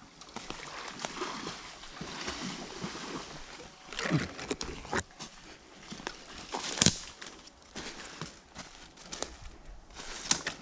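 Footsteps rustling through ground cover outdoors, with a few sharp knocks; the loudest knock comes about seven seconds in.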